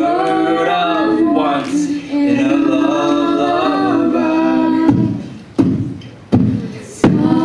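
A four-voice a cappella group singing sustained close harmony into microphones. About five seconds in the chords stop and three deep vocal-percussion hits follow, each fading out, before the singing comes back in near the end.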